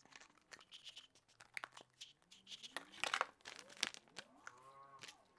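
Plastic packaging crinkling and rustling as a product is unwrapped by hand, in scattered crackles with a louder flurry about three seconds in.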